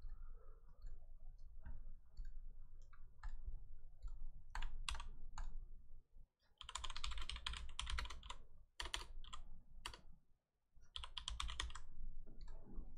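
Typing on a computer keyboard: scattered key clicks, then two quick runs of typing, about six and eleven seconds in.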